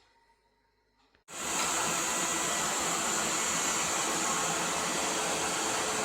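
Near silence for about a second, then a robot vacuum cleaner comes in suddenly and runs steadily with an even, hissing whir.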